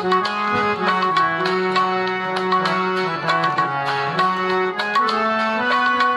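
Bhajan music: a harmonium plays a stepping melody over tabla strokes. The melody sinks to lower notes around the middle and climbs back near the end.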